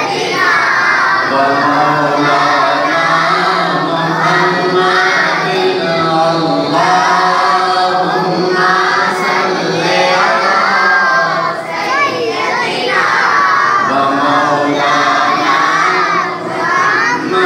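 A man singing a naat (Urdu devotional poem) without instruments into a handheld microphone over a PA, with other voices joining in.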